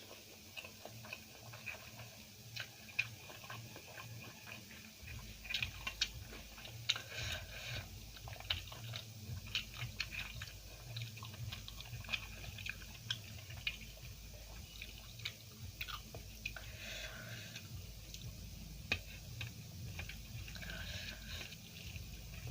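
A person chewing and biting food close to the microphone: an irregular run of sharp, crunchy clicks mixed with wet mouth sounds.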